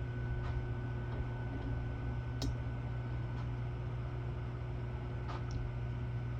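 Steady low hum with a few faint light clicks, the sharpest about two and a half seconds in, from small metal parts being handled while the new guide bosses are fitted.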